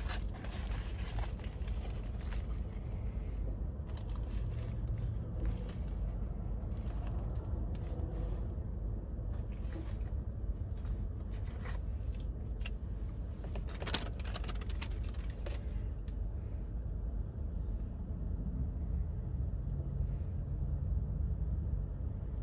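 Paper sandwich wrapper being unwrapped, with scattered crinkles and crackles over a steady low hum.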